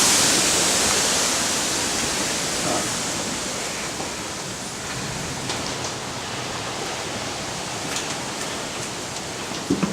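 Heavy rain pouring down as a steady hiss that slowly eases off, with a few faint ticks and two quick knocks near the end.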